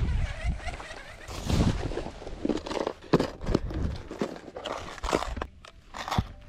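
Close handling noise of fishing gear: rustling and knocks, with a sharp click about three seconds in, as a clear plastic tackle box of soft plastic baits is handled and opened.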